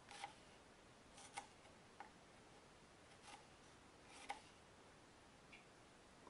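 Small paring knife slicing through strawberries and knocking on a wooden cutting board: a series of soft, sharp taps about once a second, loudest about a second and a half in and just after four seconds.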